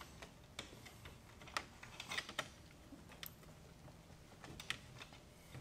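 Faint, irregular clicks and taps of hard plastic and metal parts as a towing mirror is handled and fitted against a car door's mirror mount.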